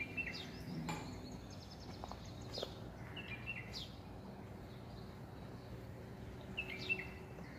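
Small birds calling: a short, high chirping phrase repeated three times, about three seconds apart, with a few quick downward-sweeping notes between, over a faint steady hum.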